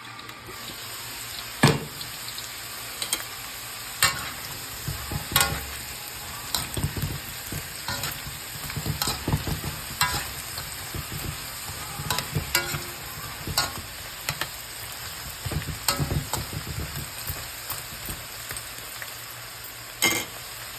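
Food sizzling as it fries in hot oil, with a utensil knocking and scraping against the pan at irregular moments as the pieces are stirred and turned.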